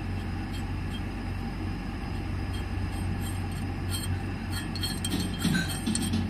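Steady low mechanical hum of workshop machinery, with a few light metallic clinks about four to six seconds in as a knurled threaded ring is screwed by hand onto a freshly lathe-cut 1 inch 24 tpi thread on a bicycle fork steerer to test the fit.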